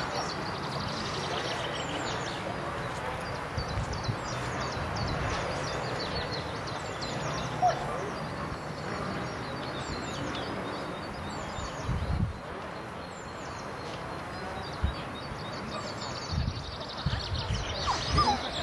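Outdoor ambience: small birds chirping over and over in short high calls above a steady background hiss, with a few brief low bumps.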